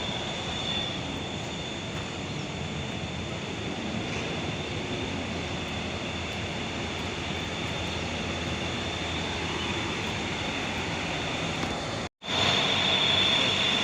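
Steady bus engine noise with a thin, steady high tone above it. About twelve seconds in, the sound cuts out for an instant and comes back louder.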